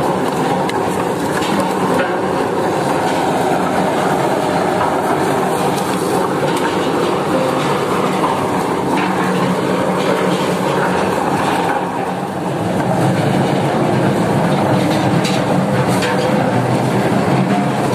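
Tractor-driven eucalyptus debarking machine running, a loud steady clatter of poles rattling and tumbling inside the machine as their bark is stripped, with the tractor engine underneath. The noise dips briefly about twelve seconds in, then carries on.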